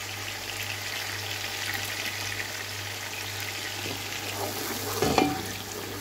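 Chopped tomatoes and whole spices sizzling in hot oil in a cooking pot while being stirred with a wooden spatula, a steady hiss over a low hum. A short, louder sound comes about five seconds in.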